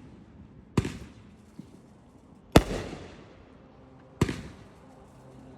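Fireworks bursting: three sharp bangs about a second and a half apart, the middle one loudest, each trailing off in an echo.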